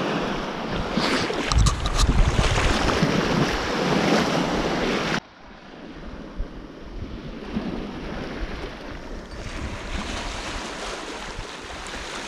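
Wind buffeting the microphone over sea water lapping around the wading angler, loud and gusty. About five seconds in it cuts off suddenly to a quieter steady hiss of wind and small waves on the shore, with a few faint knocks.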